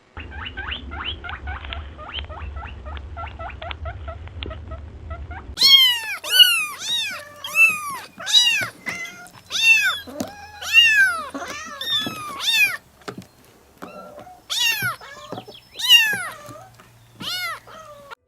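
Cat meowing again and again: about a dozen loud, drawn-out meows, each rising then falling in pitch. Before them comes a rapid string of short, quick calls over a low hum, about three a second, which stops abruptly.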